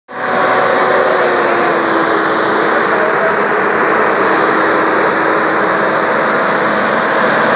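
New Holland 5610S tractor running while its air-blast sprayer's fan blows spray: a loud, steady rush of air over the engine, with a constant hum that settles slightly lower in pitch in the first couple of seconds.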